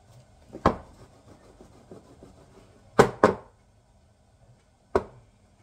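Glass baking dish full of semolina batter knocked down on a wooden countertop to level the batter: one sharp knock, two in quick succession about two seconds later, and one more near the end.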